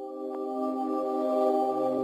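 Background music of sustained, held chords that swell up over the first second or so, with a low bass note joining near the end.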